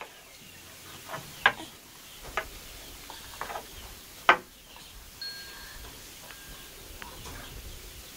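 A few scattered light taps and knocks, the loudest about four seconds in, with a brief high steady tone just past five seconds.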